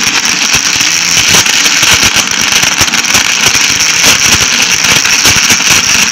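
Electric mixer-grinder running loud and steady with a high whine, blending pitted dates, tamarind pulp, jaggery and water into a thick paste.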